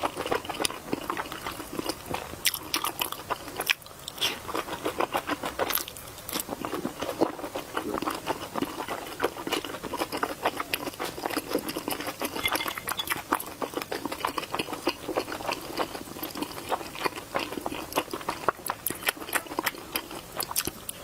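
A person chewing and biting food with dense, crisp crunching clicks, almost without a break, with a short lull about four seconds in.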